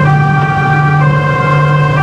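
Police van siren heard from inside the van, sounding a two-tone pattern that switches between a higher and a lower pitch about once a second, over a steady low hum.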